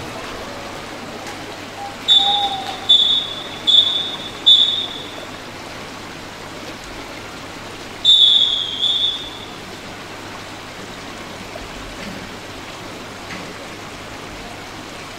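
Referee's whistle at a swimming race start: four short blasts about a second apart, then one longer blast about eight seconds in, the long whistle that calls the swimmers up onto the blocks. Steady hiss of the pool hall underneath.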